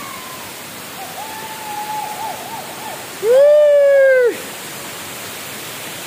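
Steady rushing of the Purandhara waterfall. Over it, a person's voice calls out in a wavering line, then about three seconds in gives a loud held shout lasting about a second.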